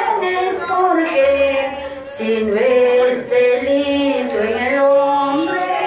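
A woman singing into a microphone, her amplified voice holding long notes and gliding between pitches, with a few sharp percussive strikes behind it.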